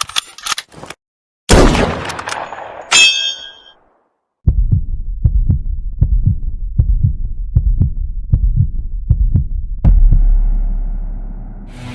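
Heartbeat sound effect: a steady low lub-dub at about one and a half beats a second. Before it come a sharp bang and a clang that rings like metal. It ends in a low boom that fades away over about two seconds.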